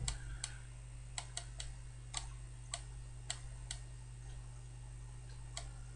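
Light, irregularly spaced clicks of a computer mouse's scroll wheel as a web page is scrolled, with a longer pause near the end, over a steady low electrical hum.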